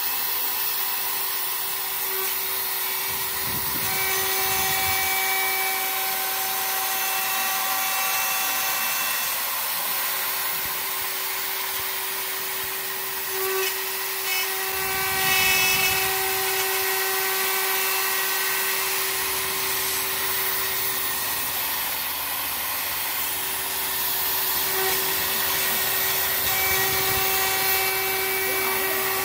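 CNC router spindle running with a steady whine while its end mill cuts a lock slot into an aluminium door profile. A higher cutting tone comes and goes three times as the tool makes its passes.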